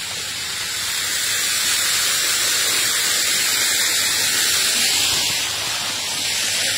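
Steady, loud hissing noise, strongest in the upper range, growing louder about a second in.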